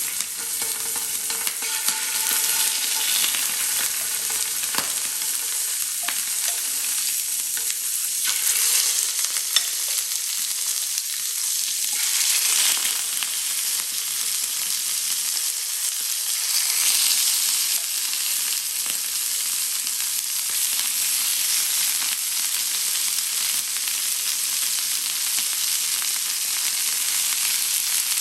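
Bone-in, skin-on chicken pieces frying skin side down in hot oil in a pan, giving a steady sizzle with crackling spatters throughout.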